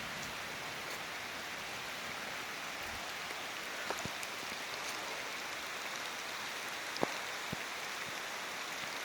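Heavy rain falling steadily, an even hiss, with a few louder single drops striking close by, the sharpest about seven seconds in.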